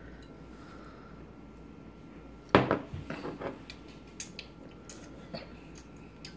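A glass drink bottle set down on a wooden table with one sharp knock about two and a half seconds in, followed by a few lighter clinks and taps.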